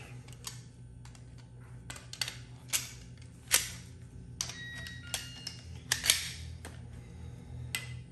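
Slip-joint pliers and a brass pressure-washer unloader fitting knocking and clicking together as they are handled: about ten sharp, irregular taps, the loudest about three and a half and six seconds in, with a brief metallic ring just after five seconds, over a low steady hum.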